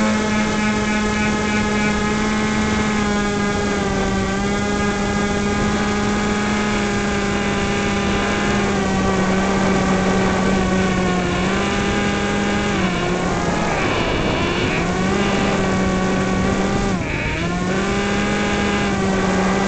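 Yellow Bee RC plane's motor and propeller running steadily, heard from on board as a constant hum with overtones. The pitch drops briefly three times, about 13, 14 and 17 seconds in, as the throttle eases, then picks up again.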